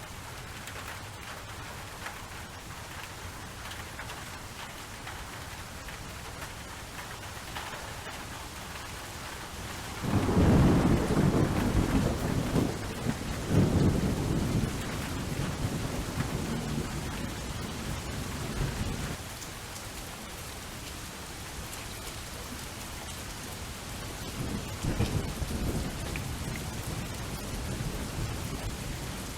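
Steady rain falling, with a long roll of thunder that breaks in suddenly about a third of the way through and dies away after several seconds, and a fainter rumble near the end.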